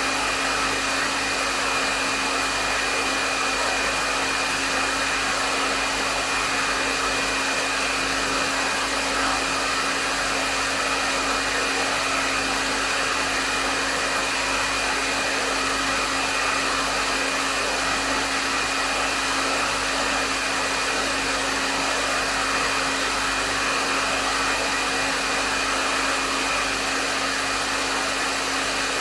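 Hair dryer running steadily: an even rush of blown air with a constant motor hum and a faint high whine, unchanging throughout.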